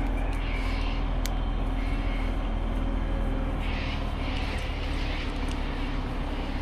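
Crane engine running with a steady low drone, with a couple of brief hissing rustles around the middle.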